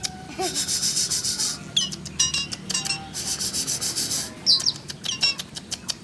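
Asian pied starling calling: two long harsh, rasping bursts of chatter with short sliding whistled notes between and after them.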